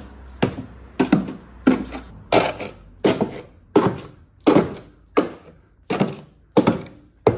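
A screwdriver stabbed again and again up into a van's rusted steel sill, about a dozen sharp strikes in quick succession, each punching through the metal: the sill is rotten through, 'like cheese'.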